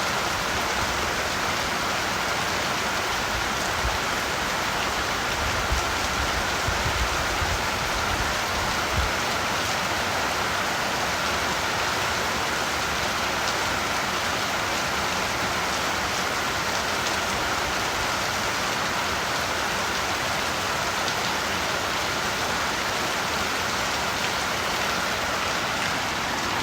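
Steady rain falling on surfaces, an even hiss with no let-up. A few brief low thumps come about six to nine seconds in.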